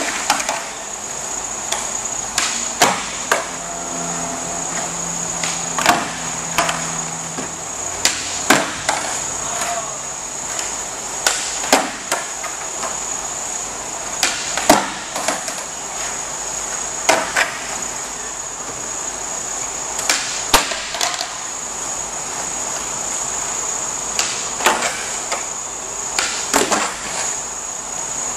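Skateboards on a concrete floor: sharp cracks of tails popping and decks slapping and clattering down as flatground tricks are tried, one or two at a time every few seconds. A steady high-pitched whine runs underneath.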